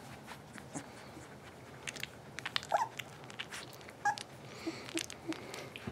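Young puppies, about two and a half weeks old, giving a few brief high squeaks from about halfway in, among soft clicks and rustles as one mouths and nuzzles a hand.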